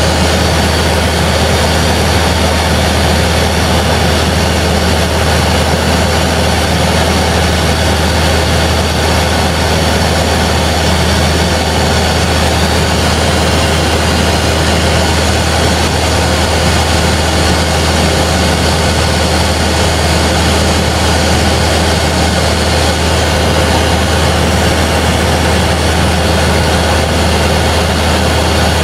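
Cessna 172's piston engine and propeller running steadily in cruise, heard inside the cabin as an unbroken low drone with wind rush over it.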